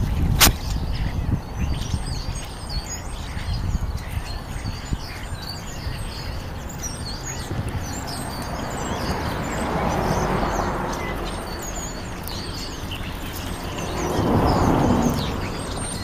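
Small birds chirping again and again over a low rumble, with one sharp click about half a second in. Two swells of noise rise and fall, each about two seconds long, around ten seconds in and near the end.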